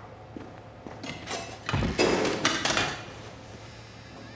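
Kitchen clatter of dishes, pots and utensils being handled: a handful of knocks and clanks, loudest about two seconds in.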